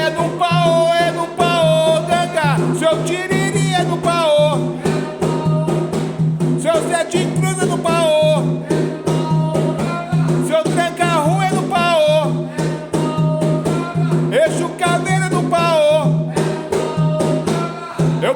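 Music of an Afro-Brazilian Quimbanda ponto for Exu and Pombagira: a wavering sung melody over a steady percussion beat, with no clear words.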